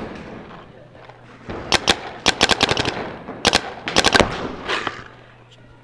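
Paintball markers firing rapid strings of shots, several quick bursts starting about a second and a half in and dying away near the end.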